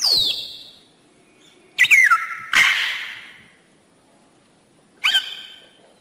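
Rainbow lorikeet giving shrill calls that fall in pitch: one at the start, two close together about two seconds in (the second harsher and more screechy), and a shorter one near the end.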